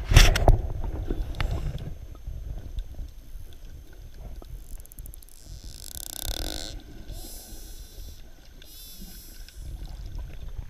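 Dolphins vocalising underwater: after a loud thump at the start, a short fast train of clicks about halfway through, followed by buzzing bursts and wavering, warbling pulsed calls over the next few seconds, with low water noise throughout.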